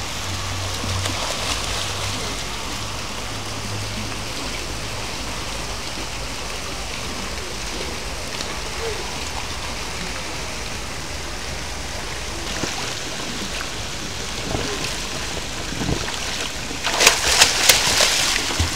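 Steady splashing of fountain jets falling into a swimming pool. Near the end, a louder burst of splashing as a child in a swim ring thrashes in the water.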